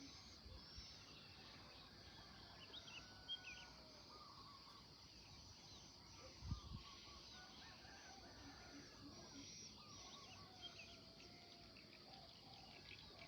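Faint chorus of many wild birds chirping and calling, short chirps and little gliding notes overlapping throughout, over a steady high-pitched drone. A brief low thump about six and a half seconds in.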